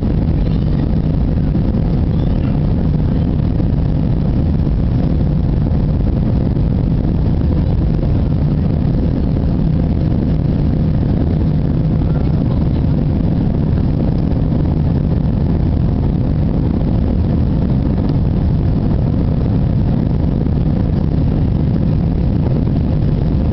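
Airbus A320-200 cabin noise during climb-out after takeoff. The jet engines and the rushing air are heard from inside the cabin as a steady, loud drone with a low hum.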